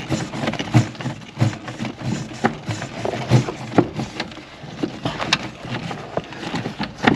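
Irregular knocks, clicks and rustling as old wiring and parts are worked loose by hand under a pickup truck's dashboard.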